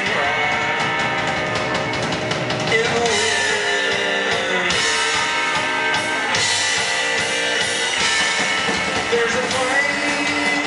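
Live psychobilly band playing rock and roll: electric guitar, upright bass and drums, with a sung vocal.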